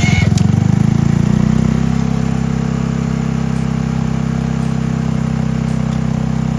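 A 150cc moped's single-cylinder engine just started, settling over the first second or two into a steady idle.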